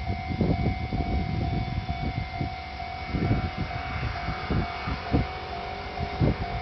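Japanese railway level-crossing warning bell ringing in a steady repeating electronic tone, which signals that a train is approaching. Under it runs a low, irregular rumbling with knocks.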